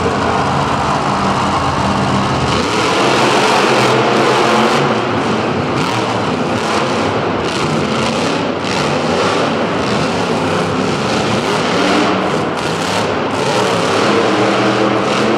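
Two monster trucks' engines running hard at high revs as the trucks race side by side, a loud, steady, dense engine noise.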